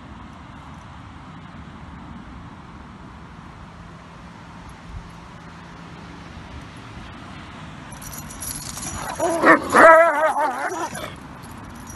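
A dog gives a loud, wavering yelping whine about eight seconds in, lasting roughly three seconds, over low outdoor background noise.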